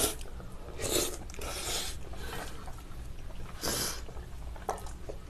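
Cold bibim-naengmyeon noodles slurped through the lips in a few short bursts, the loudest a little before the end, with chewing in between.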